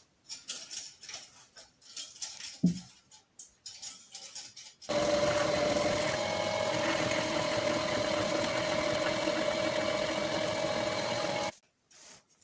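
Clicks and knocks of handling, with one dull thump, then an electric motor starts abruptly about five seconds in. It runs steadily with a fixed whine for about six seconds and cuts off suddenly.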